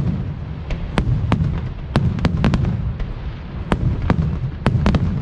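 Aerial fireworks display: about a dozen sharp bangs at uneven intervals, some in quick clusters, over a continuous low rumble of bursting shells.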